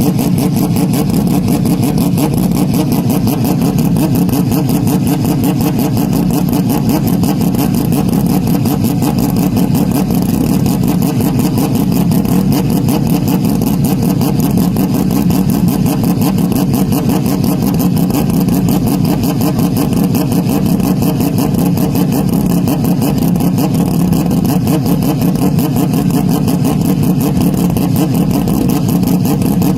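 Porsche 911 RSR race car's flat-six engine at a steady, sustained drone without clear gear changes, heavily bass-boosted and distorted.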